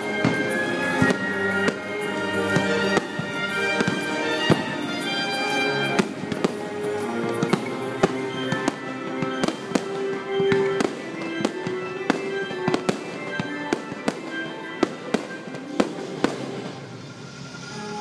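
Fireworks show: many sharp bangs in quick succession over show music. The bangs thin out and stop near the end, leaving the music.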